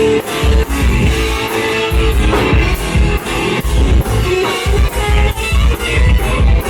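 Live instrumental electric guitar jam over heavy bass and a steady beat.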